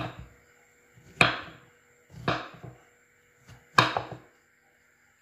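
Knife chopping through a block of tempeh on a wooden cutting board: four cuts at uneven spacing, each a sharp stroke that fades quickly.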